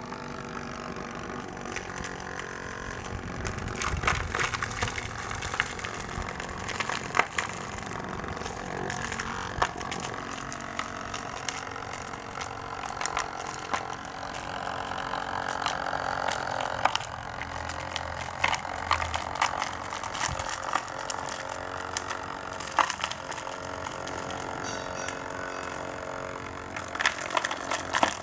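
Rotavator running steadily with its rotating tines grinding through soil: a steady engine hum with frequent irregular clicks and knocks of clods and stones striking the blades.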